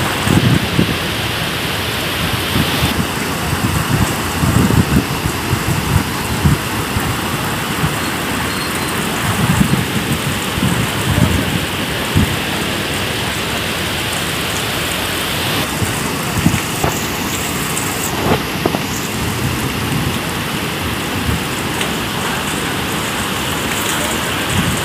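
Heavy monsoon rain pouring down steadily onto a street and vegetation, a dense hiss, with irregular low rumbling gusts every few seconds.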